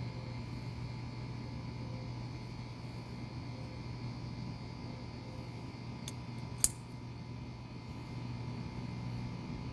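Steady low hum of a fan-like background noise, with one sharp click about six and a half seconds in and a fainter click just before it.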